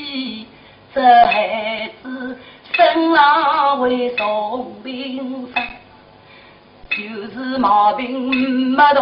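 Shanghai opera (Huju) singing: a voice sings in short phrases with a wavering pitch, broken by brief pauses and sharp clicks every second or so.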